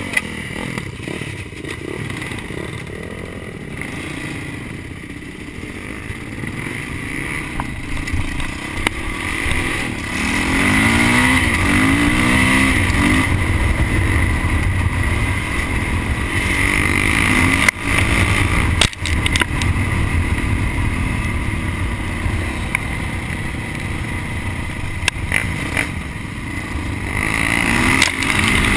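Honda CRF250X single-cylinder four-stroke dirt bike engine under way, its pitch rising and falling with throttle and gear changes. A couple of sharp knocks a little past halfway.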